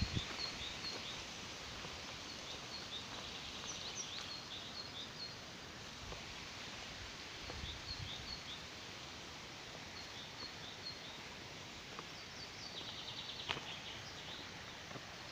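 Small songbirds chirping repeatedly in short high notes over a steady rush of running water, with a brief rapid trill late on.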